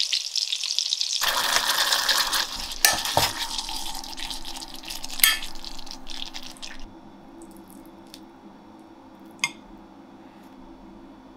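Meatballs simmering in a steel pot of liquid, a steady bubbling hiss, with a few sharp clinks of metal utensils against the pot. It then goes quieter, with one more clink near the end.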